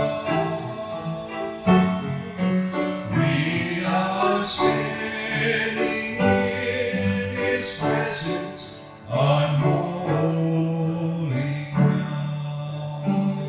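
Piano playing a slow worship song: held chords and a melody, with new notes struck every second or so.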